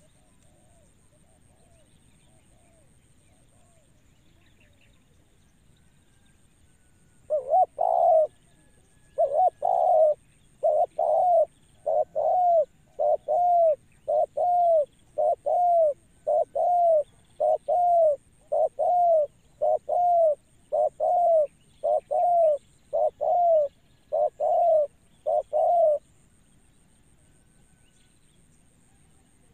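Spotted dove cooing: a few faint coos, then from about seven seconds in a long run of about twenty loud, evenly spaced coos that stops a few seconds before the end.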